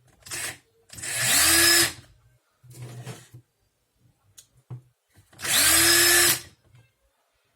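Cordless drill running on a home-built lithium pack of laptop cells: two short trigger pulls at full speed, each a whine that rises quickly as the motor spins up and then holds for about a second, with two shorter, softer blips of the motor before and between them.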